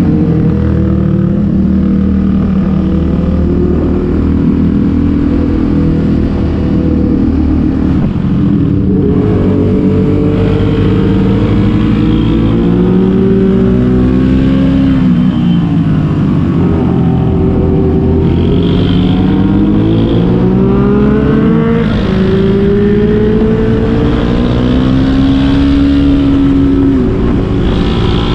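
Sport motorcycle engine under way, its note climbing under throttle and falling again several times as the rider accelerates and eases off, with a sharp drop about three quarters of the way through.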